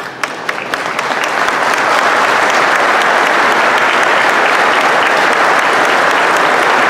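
Audience applauding: a few scattered claps that swell within about two seconds into steady, dense applause.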